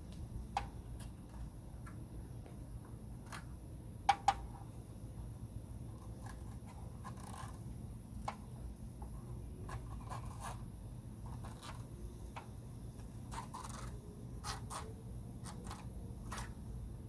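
Scattered small scrapes and clicks of a blade trimming excess screen mesh along the rubber spline, with two sharper clicks about four seconds in.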